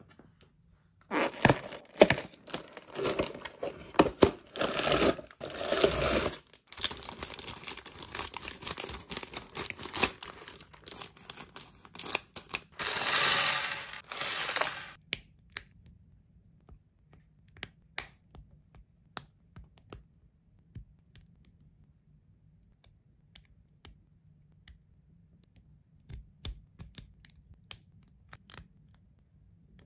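Packaging of a LEGO set being torn open and plastic parts bags crinkling, with loose plastic bricks rattling and clattering onto a table. About 15 s in this gives way to sparse single clicks of LEGO bricks being pressed together.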